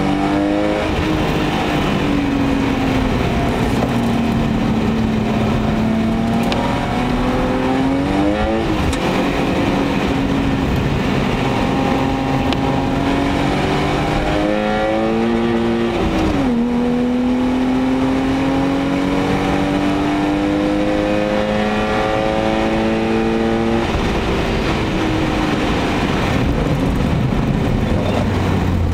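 BMW 525i E34's M50B25TÜ 2.5-litre 24-valve straight-six under acceleration on track, heard from inside the cabin over tyre and road noise. The engine pitch rises and breaks sharply at gear changes about eight and sixteen seconds in, then climbs steadily for about eight seconds before dropping back near the end.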